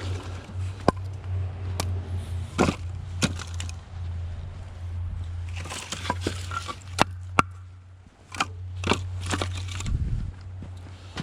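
Split hardwood firewood being handled and stacked: irregular sharp wooden knocks and clacks as pieces are set on the pile, over a steady low hum.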